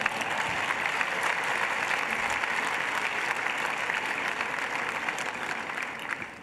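Large audience applauding steadily, dying away near the end.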